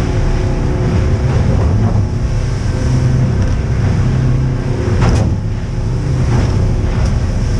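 Outboard engines running steadily at about 25 mph, heard inside the boat's enclosed wheelhouse. The hull slams through wind chop and spray hits a few times, hardest about five seconds in.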